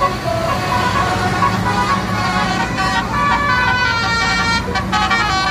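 A bus's multi-tone telolet basuri horn playing a tune in quick stepped notes, several tones sounding at once, over the low running of the bus engine.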